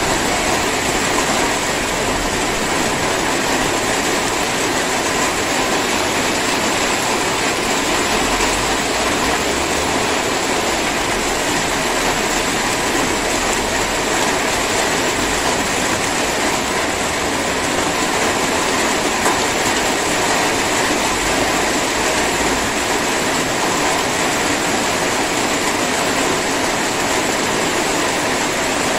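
Steady drizzle: an even, unbroken hiss of light rain falling.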